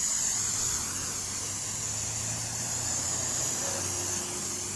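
An engine running steadily under a constant high hiss.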